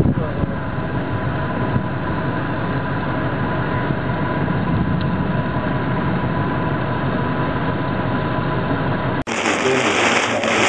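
Vehicle engine idling with a steady hum, heard from inside the car. About nine seconds in, the sound cuts abruptly to the hiss of heavy rain falling.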